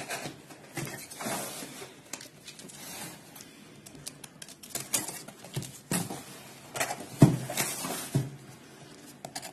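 Hands handling a cardboard shipping box sealed with plastic packing tape: irregular scratching, rustling and tapping as the tape is picked at and cut open, with a sharper knock about seven seconds in.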